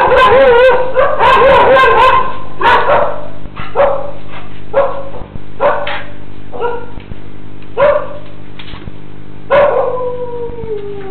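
A dog barking and yelping. The first two seconds hold a dense run of wavering, overlapping yelps. Single barks follow about once a second, and near the end comes one long whine that falls in pitch.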